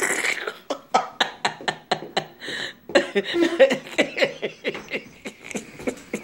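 Stifled laughter from a person: quick, breathy, clicky bursts, about four or five a second, with a couple of longer hissing breaths.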